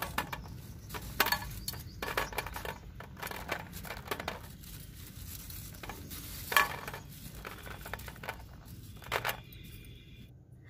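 Candied petha pieces being picked off a metal mesh rack and dropped onto a steel plate: irregular soft knocks and clinks, a few seconds apart, the loudest about six and a half seconds in.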